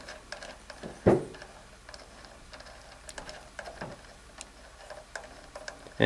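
Faint, irregular small metallic clicks and ticks from an acorn nut being unscrewed by hand off the axle of a Shimano Nexus 7-speed hub, with one short, louder low thud about a second in.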